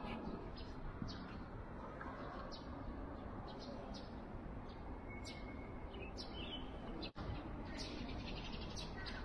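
Birds chirping in short, high calls scattered throughout, over steady outdoor background noise.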